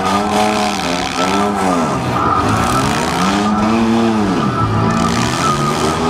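Engines of four- and six-cylinder demolition derby cars revving up and down again and again, their pitch rising and falling in long swells over the steady running of other engines. A thin, steady high whine runs underneath.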